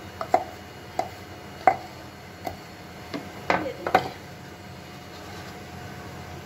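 Wooden pestle knocking and scraping against a wooden mortar as pounded tomato chutney is tapped out onto a plate: about seven sharp knocks in the first four seconds, three of them close together near the middle.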